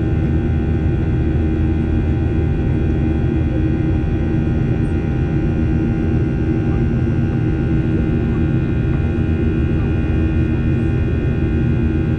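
Steady engine drone and rushing air inside the cabin of a Boeing 737-800 with CFM56 engines: a low rumble with several steady whining tones over it, unchanging in pitch and level.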